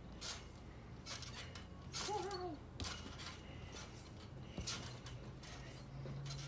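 Trampoline springs and frame clinking and creaking in short repeated strikes as a person bounces on the mat. A short high-pitched vocal sound that rises and falls comes about two seconds in.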